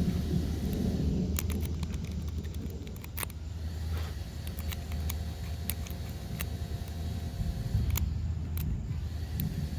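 Scattered light metallic clicks of homemade stainless steel lock picks working the pins of a lock, over a steady low rumble.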